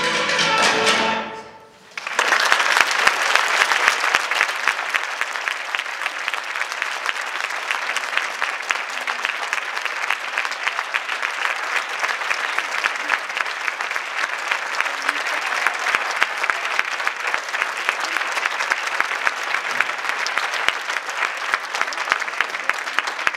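An orchestra's last held chord dies away, and about two seconds in a large audience starts applauding.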